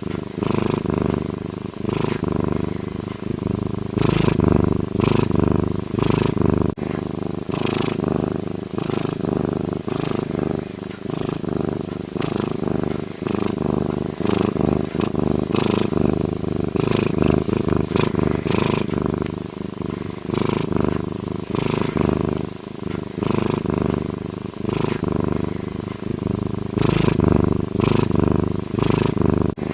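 A lynx purring in a continuous deep rumble, with a rasping accent recurring roughly once or twice a second.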